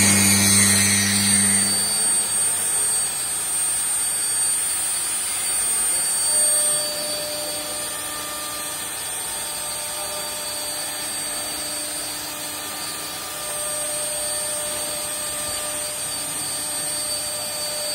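CNC router's spindle and drives running with a steady high whine over a noisy hiss. A loud low hum cuts off about two seconds in.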